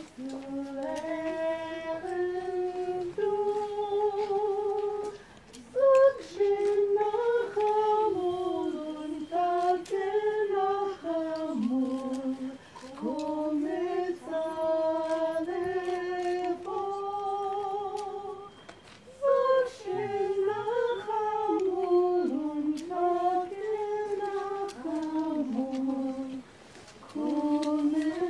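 A single voice singing a slow, unaccompanied melody, holding notes with vibrato, in phrases broken by short breaths.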